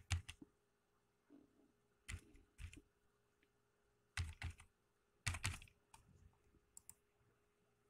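Computer keyboard keys pressed slowly while a number is typed in: faint single keystrokes and short clusters of clicks every second or so.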